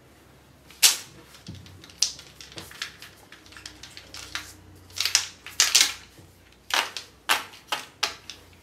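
Plastic felt-tip marker pens being handled and knocked together over paper: a run of sharp plastic clicks and clatters. The loudest is about a second in, with quicker bunches around five to six seconds and again around seven to eight seconds.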